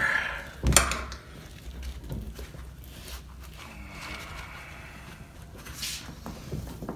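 Tire irons spooning the bead of a 21-inch dirt bike front tire onto the rim: one sharp metal clink about a second in, then quiet rubbing and scuffing of rubber against the rim.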